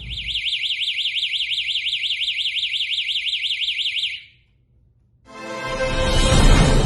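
Electronic alarm siren with a red warning light, sounding a loud high warbling tone that sweeps up and down several times a second. It cuts off after about four seconds. About a second later, music swells in.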